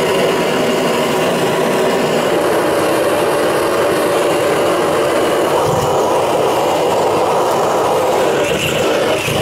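Handheld gas-canister torch burning with a loud, steady flame noise, its flame played over a pig's head to singe the thick skin and the bristles left on it.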